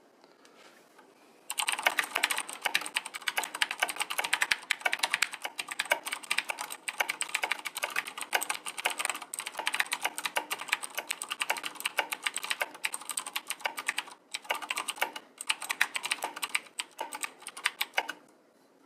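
Fast, continuous typing on a Razer BlackWidow Ultimate 2013 mechanical gaming keyboard, its tactile switches clacking loudly. The typing starts about a second and a half in and breaks off briefly near the end.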